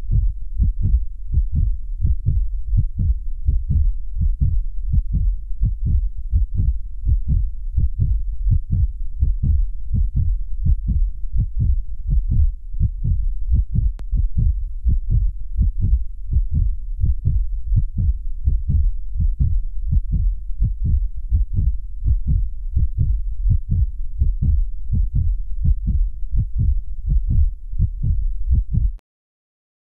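A steady, deep thumping beat of about two thumps a second over a constant low bass, laid onto the footage as a soundtrack rather than the ride's own noise. It stops abruptly about a second before the end.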